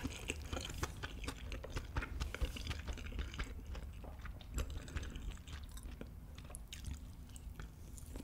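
Close-miked chewing of a mouthful of kimchi fried rice: a stream of small wet mouth clicks and smacks, uneven and with no steady rhythm.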